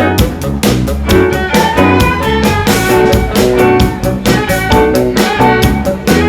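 Upbeat band music with a steady, quick beat, about four strokes a second, under sustained melody notes.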